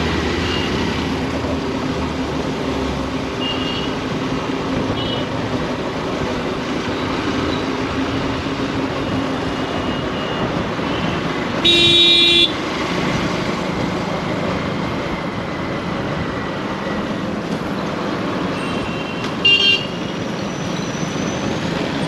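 Road traffic noise heard while riding through city traffic, with a vehicle horn honking for almost a second about halfway through and a short honk near the end.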